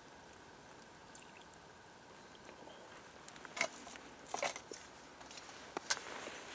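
Meat stock pouring faintly from a titanium pot into a metal bowl over sliced roast beef. About halfway in, a few sharp clicks and rustly knocks follow.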